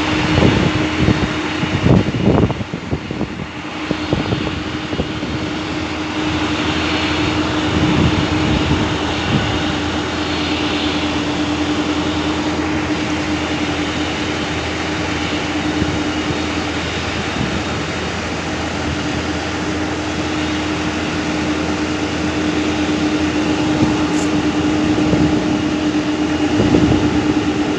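Boeing 747-300 jet aircraft running with a steady, even rush of jet noise and a constant droning hum. A few bumps and knocks come in the first few seconds.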